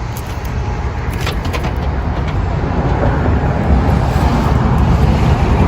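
A motor vehicle running nearby, its low rumble growing steadily louder, with a few light clicks about a second in.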